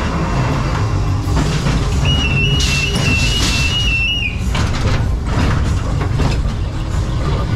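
Ghost train car running along its track amid loud ride music and effects, with a low rumble and a few knocks. A high whistle-like tone, stepping between two close pitches, sounds for about two seconds near the middle.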